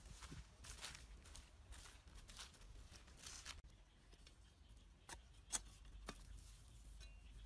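Dry straw stubble and soil being worked by hand and with a stick: faint rustling and crackling, with three sharp snaps a little past the middle, the second one the loudest.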